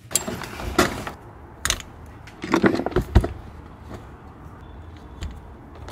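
Handling noises: rustling with a scatter of sharp knocks and clunks, a cluster of them with a heavy thump about three seconds in.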